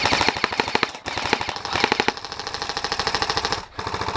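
Airsoft electric guns firing on full auto, a fast, even rattle of shots in long bursts with a short break about a second in, stopping shortly before the end.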